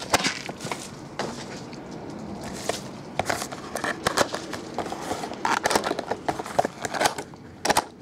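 Folding utility knife slitting open small cardboard card-pack boxes, with scrapes and sharp clicks and knocks as the boxes are handled on a table; the clicks come thicker from about halfway through.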